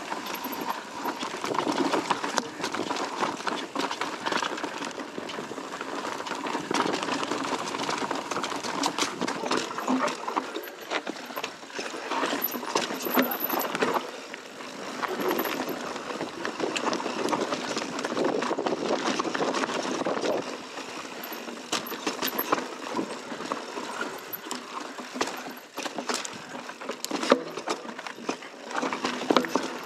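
Mountain bike riding over dirt and rock singletrack: tyres rolling and crunching over dirt, leaves and stones, with frequent short rattles and knocks from the bike.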